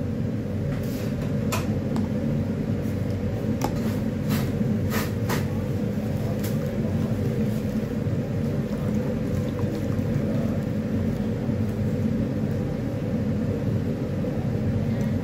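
A steady low machine hum and rumble, with a few sharp clicks and taps in the first six seconds.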